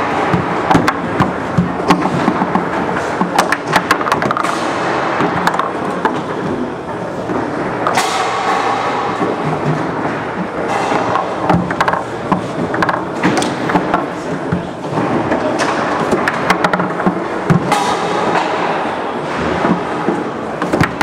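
Roberto Sport foosball table in play: the ball is struck by the plastic men and knocks off the walls, with rods clacking against the bumpers, making many sharp clicks and thuds.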